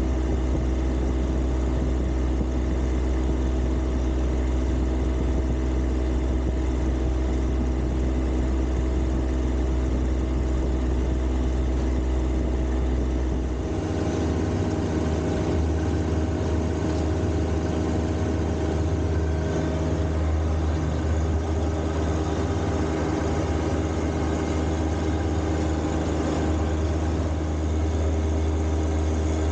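John Deere 1025R compact tractor's three-cylinder diesel engine running steadily. About 14 seconds in, its low hum shifts abruptly to a slightly higher note.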